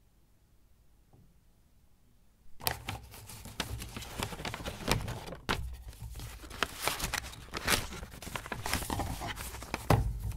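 Paper rustling and crinkling with small sharp knocks as a paper-wrapped packet is handled in a box. It starts suddenly about two and a half seconds in and goes on in an irregular clatter of crackles.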